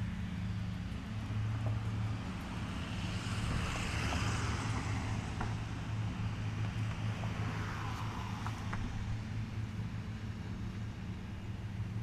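Riding lawn mower engines running with a steady low drone, while a rushing sound swells and fades twice, around a third of the way in and again about two-thirds in.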